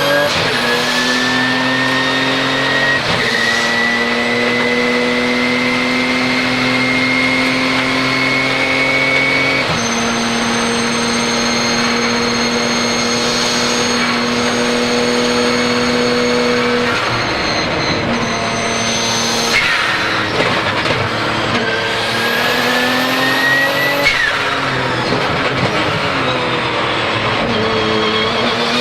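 Twin-turbo 3.9-litre flat-six of a Porsche 997 GT2 RSR heard onboard at speed, with a high turbo whistle above the engine note. The engine holds a steady pitch that steps at quick gear changes about three and ten seconds in. About twenty seconds in comes a short sharp burst, and then the engine pitch falls and climbs again.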